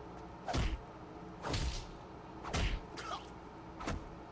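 Anime fistfight sound effects: four heavy punch impacts, about one a second, each with a short swish, plus a lighter hit near three seconds in.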